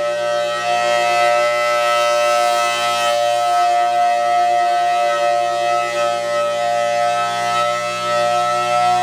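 Federal Signal Thunderbolt 1000T siren on its full-alert signal, holding a loud, steady tone that swells and fades slightly as it sounds. The tone is a little 'sick', an off sound that earlier repair work has not fully cured.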